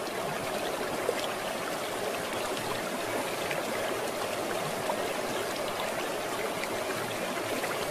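Steady rush and fizz of sea water at the shore, with small crackles over it.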